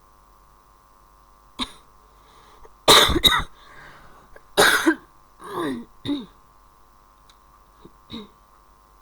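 A person coughing in a short fit: a single cough, then a loud run of coughs about three seconds in, followed by a few weaker coughs and throat clearing.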